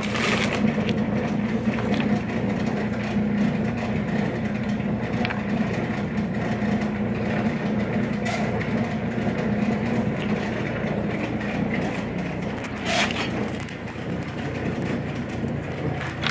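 A steady low machine hum with a rumbling undertone, with a few sharp clicks of stones and pieces of petrified wood knocking together as they are handled, about three times.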